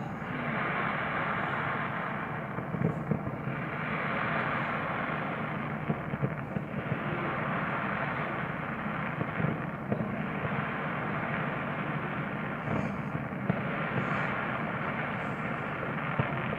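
Fireworks going off: scattered sharp bangs every one to few seconds over a steady rushing background.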